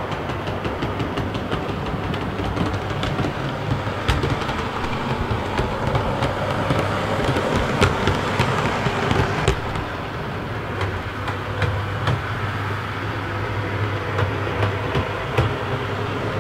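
OO gauge model Class 143 Pacer running on its track: a steady low motor hum with many small sharp clicks of the wheels over rail joints and pointwork.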